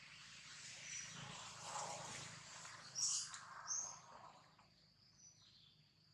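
Faint outdoor ambience: a steady high insect drone, with short high bird chirps, the loudest about three seconds in.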